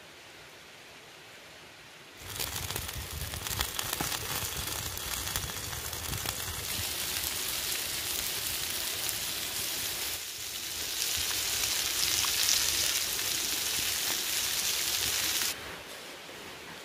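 Shrimp sizzling on a hot flat stone over a wood fire, with many small crackles. The sizzle starts about two seconds in and stops abruptly near the end.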